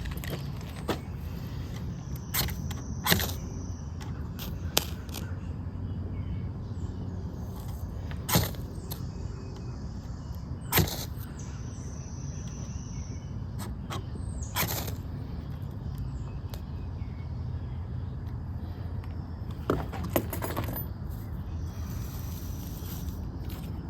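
Ferro rod scraped with the spine of a utility knife blade: a series of short, sharp scrapes spaced a few seconds apart, over a steady low background rumble.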